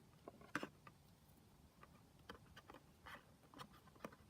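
Faint, irregular light taps and scrapes of a craft stick stirring glue in a small container.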